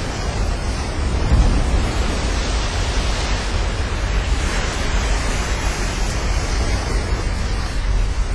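Low, steady rumble of giant breaking surf, with wind buffeting the microphone.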